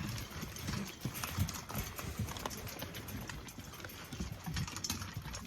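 Dogs eating dry food: many small irregular clicks and crunches of chewing.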